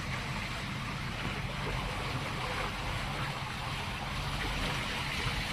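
Steady rush of water and wind along the hull of a yacht motoring under electric power, with a low steady hum underneath.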